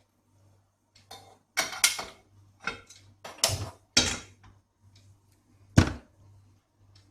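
Cookware clattering on a kitchen stove: a series of metal knocks and clanks as a pan is handled and set down, the loudest a heavy clunk near the end, over a faint low hum.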